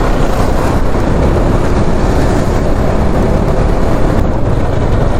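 Steady wind rush and road noise of a motorcycle ride.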